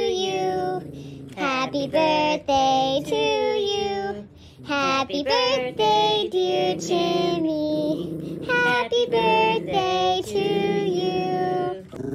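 A song: a high voice singing a melody, note by note in short phrases, over backing music.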